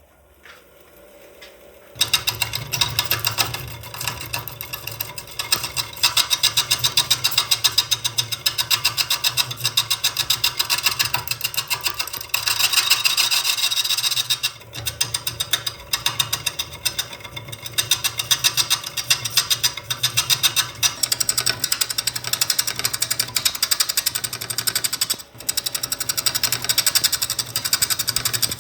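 Woodturning lathe at work, a tool cutting the spinning wood-and-resin bowl blank with a fast, even chatter. It starts suddenly about two seconds in and breaks off briefly near the end.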